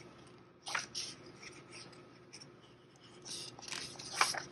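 A paper page of a picture book being turned by hand. There is a short rustle about a second in, then a longer rustle of the page near the end with a crisp flick as it turns over.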